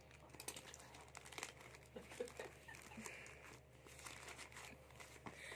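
Faint crinkling and rustling of a plastic courier mailer being pulled open by hand, with scattered light clicks.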